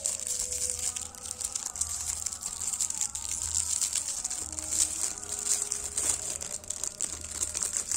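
Clear plastic packaging crinkling and rustling in the hands as a small toy elephant is unwrapped, over a steady high-pitched hiss.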